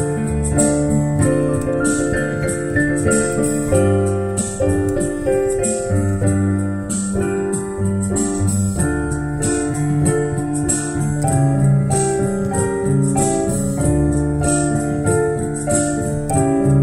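Instrumental passage of an original song: piano or electric-piano chords held over a moving bass line, with a steady ticking beat on top.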